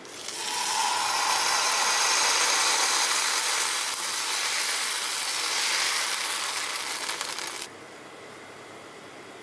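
Dosa batter sizzling as a ladleful is poured onto a hot non-stick pan and spread into a round with the ladle: a steady hiss that cuts off sharply near the end.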